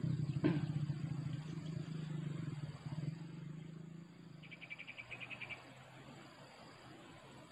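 A low drone fades away over the first four seconds. About halfway through, a cricket gives one rapid, high-pitched trill lasting about a second.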